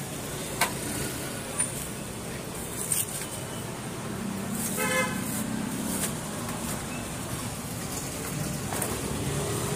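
Street traffic in the background, with a short vehicle horn toot about five seconds in. Scattered clicks and rustles come from bubble-wrapped bicycle parts being handled.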